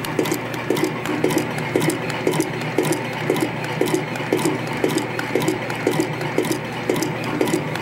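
YHM CF Series CNC spring coiling machine feeding and coiling wire into conical compression springs: a steady machine hum with a repeating clatter of clicks about twice a second as it cycles.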